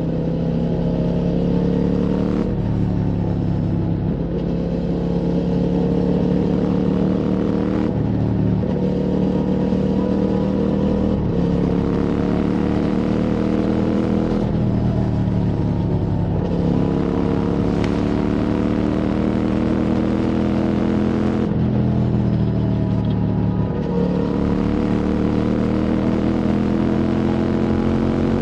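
QJ Motors SVT650X's parallel-twin engine through an Arrow Racetech slip-on exhaust, ridden hard. The engine note climbs under throttle and drops off sharply every few seconds, about eight times, as with gear changes.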